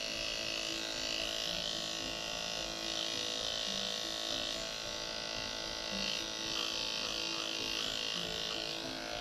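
Electric dog-grooming clippers with a #10 blade running steadily, shaving through a matted coat.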